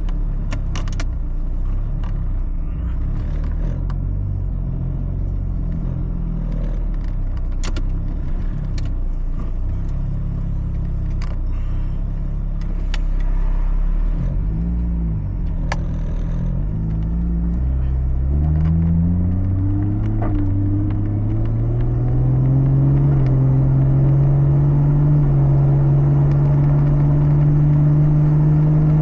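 Turbocharged Toyota Supra heard from inside the cabin while driving: a low engine and road rumble with scattered light clicks. About two-thirds of the way through, the engine note climbs smoothly as the car accelerates, then holds steady and louder to the end.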